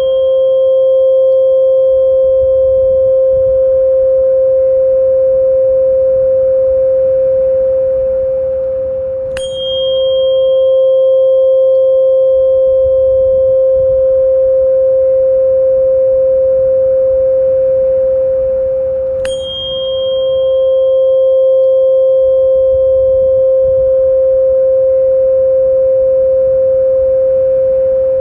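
Therapy tuning fork ringing in a steady pure hum, struck again twice about ten seconds apart. Each strike gives a sharp ting that fades within a second or two, while the low hum rings on between strikes.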